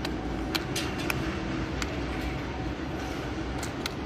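Steady worksite background noise with a scattering of sharp clicks and knocks, about seven in four seconds, from plastic turf-protection floor panels being carried, set down and locked together.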